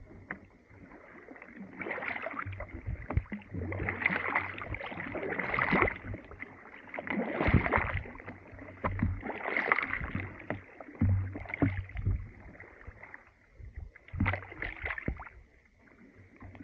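Kayak paddles pulling through water thick with broken ice and slush, a swishing, splashing stroke about every two seconds with low knocks underneath, easing off near the end.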